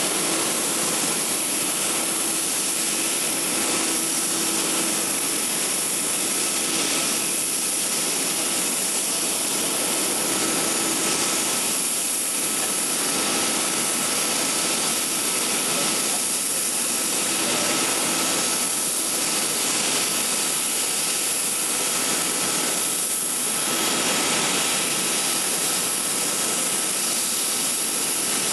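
Distant jet roar of a four-engine Airbus A380 on its take-off climb: a steady rushing noise that swells and eases a little every few seconds, with a thin steady high whine throughout.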